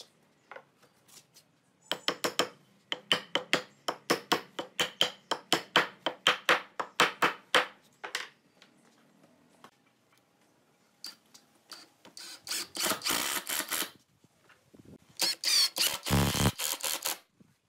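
Cordless impact driver driving screws into pine pallet wood, in two short rattling bursts near the end. Before them comes a run of sharp knocks, about four a second, for several seconds.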